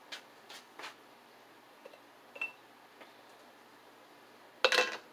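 A glass canning jar being handled and set down on a cloth-covered table: a few faint clicks and light knocks, one small clink about halfway through, then a short, louder clatter near the end.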